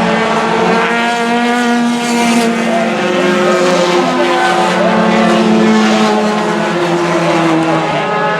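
Several four-cylinder stock-car race engines running together on the track, their overlapping engine notes holding steady and shifting slightly in pitch.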